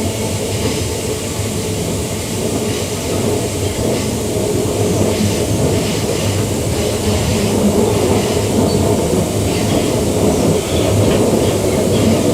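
Queensland Rail EMU electric train running along the track, heard from inside the carriage: a steady rumble of wheels on rail with faint light clicks, slowly getting louder.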